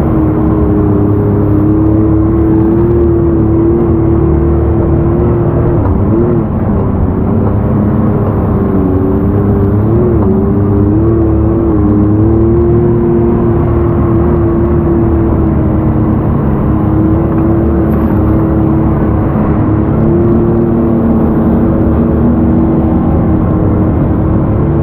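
Can-Am ATV engine running at a steady, cruising throttle while riding. Its pitch dips and rises briefly about six seconds in and again about ten seconds in.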